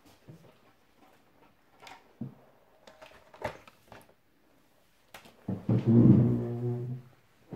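Several light taps and clicks of card and paper being handled and set down on a table, then a loud, steady low hum-like tone for about a second and a half near the end.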